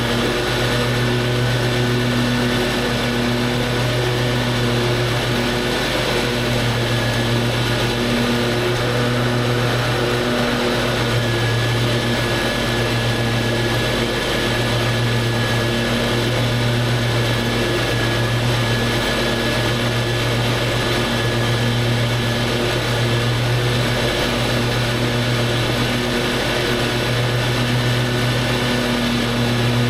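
Lawn mower engine running steadily while mowing, a constant low hum that wavers slightly every couple of seconds.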